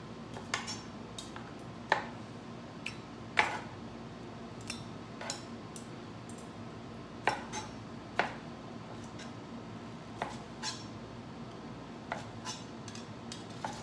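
Chef's knife cutting cooked shrimp on a plastic cutting board, knocking the board at irregular intervals about once a second, with some clatter of metal tongs, over a steady low hum.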